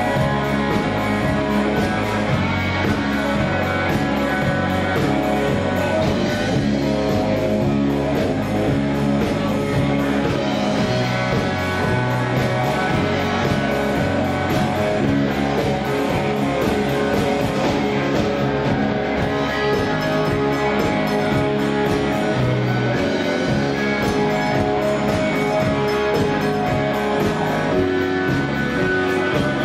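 Live rock band playing an instrumental stretch: electric guitar over a stepping bass line and drums.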